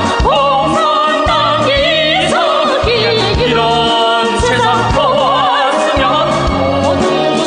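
Recorded Joseon-style (Korean-Chinese) folk-dance song: a voice sings with wide vibrato over a steady beat of about two strokes a second.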